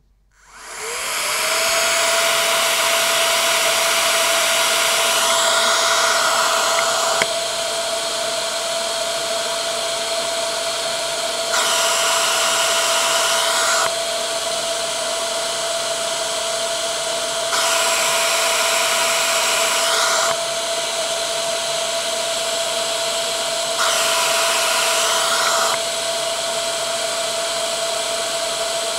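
CPAP blower fan spinning up about a second in, then running with a steady whine and a loud rush of air at its intake. Several times the noise drops for a few seconds and the high intake whistle goes away as the 3D-printed baffle muffler is held over the intake, then comes back when it is taken off.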